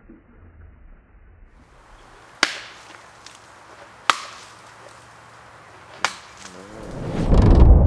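Baseball bat whacking soft orange fruit flesh on a wooden stump: three sharp blows about two seconds apart. Near the end a swelling whoosh of low rushing noise rises and is the loudest sound.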